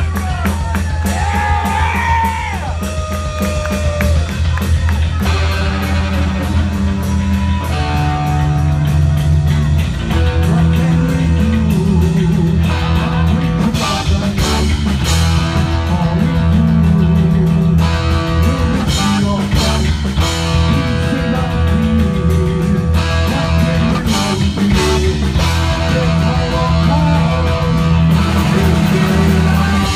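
Heavy metal band playing live: distorted electric guitar, bass guitar and drum kit, with a lead vocal.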